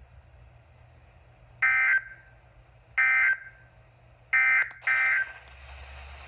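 NOAA Weather Radio EAS/SAME digital header data bursts. These are short, shrill, buzzing bursts of alert data that open the weekly test. There are four: three about a second and a half apart, then the last two close together.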